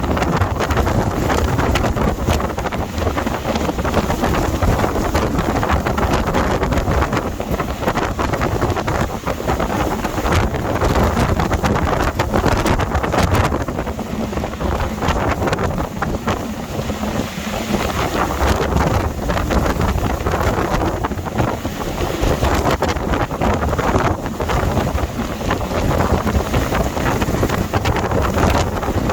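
Storm-force wind gusting and buffeting hard against the microphone, a loud, constant rumbling roar with rapid knocks of wind on the mic.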